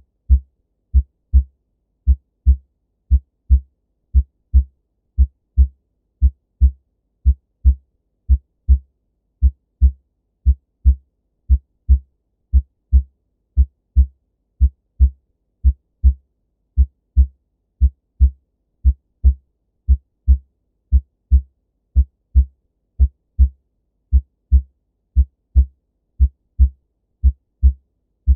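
Human heart sounds: a steady lub-dub, pairs of short low thuds about one pair a second, with silence between beats. The first sound of each pair (lub) is the closing of the mitral and tricuspid valves, the second (dub) the closing of the aortic and pulmonary valves.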